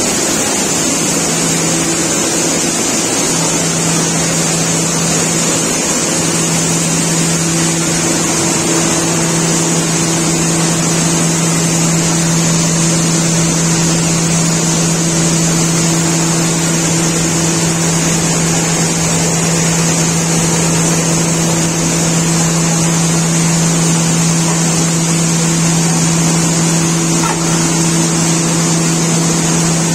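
Seed-processing machinery, a bucket elevator and a gravity separator, running steadily. It makes a loud, even hum with a low drone and a high hiss.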